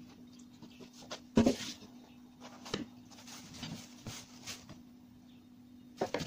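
Kitchen handling sounds: a few sharp knocks and clatters of pots or utensils, the loudest about a second and a half in and again near the end, over a steady low hum.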